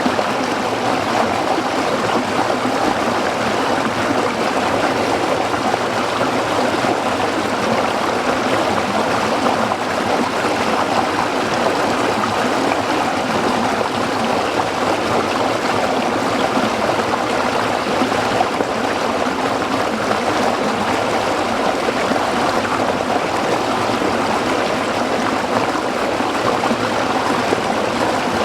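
Stream water flowing and splashing over rocks, a steady, even rush.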